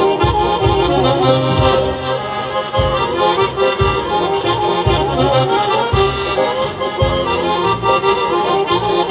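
Piano accordion playing a traditional folk tune over a steady bass beat.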